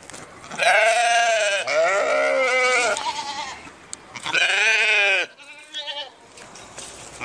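Sheep bleating: four or five separate calls, each about a second long with a quavering pitch, from more than one animal.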